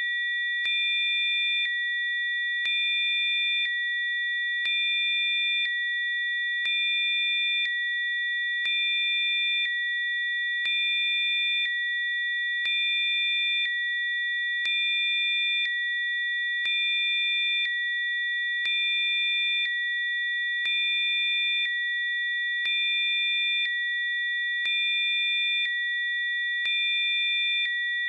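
Electronically generated pure tones of a Rife frequency program: several steady high tones sounding together. The loudness rises slightly about every two seconds as fainter tones switch on and off.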